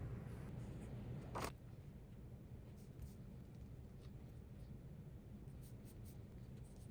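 A sheet of A4 paper being handled and marked out by hand: faint light ticks and a short, sharp paper rustle about a second and a half in, over a low steady room hum.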